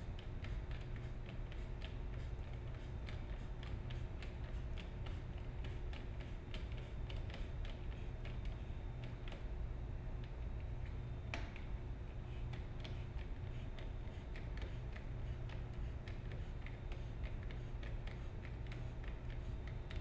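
Small plastic clicks and ticks from a car's exterior door handle mechanism as it is worked by hand, with one sharper click about eleven seconds in, over a steady low hum.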